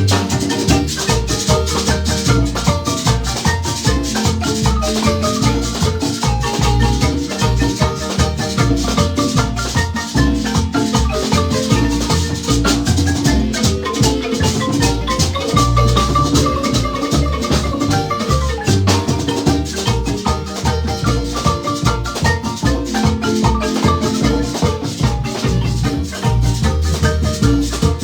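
Marimba band playing a lively tune: fast runs of struck wooden-bar notes over deep bass notes and a steady percussion beat.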